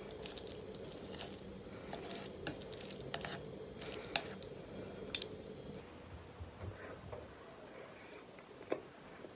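Chopsticks working through sticky sauced instant noodles in a metal pan: wet squishing with short sharp clicks, the loudest about five seconds in. Quieter eating and chewing sounds follow, with one more click near the end.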